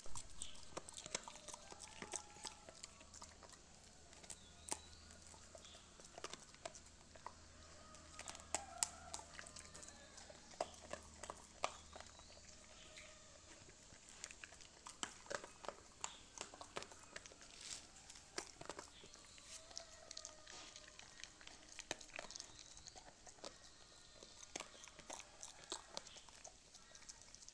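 Labrador chewing corn: many short, sharp crunches.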